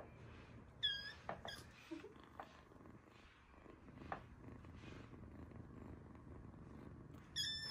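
A young kitten mewing in a high, thin voice: one short mew about a second in and a longer one near the end that falls in pitch as it ends, with a few light taps in between.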